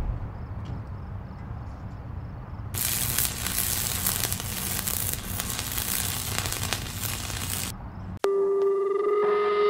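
Logo-intro sound effects: a low rumble, then about five seconds of sizzling electric-spark crackle. The crackle cuts off suddenly near the end and gives way to a steady electric buzz made of several held tones as the logo lights up.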